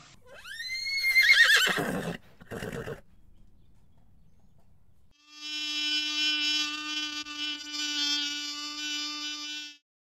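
A white-handed gibbon's call that rises and wavers for about two seconds, with a shorter burst after it. From about five seconds in, a mosquito's wingbeats make a steady, even-pitched whine that lasts about four and a half seconds.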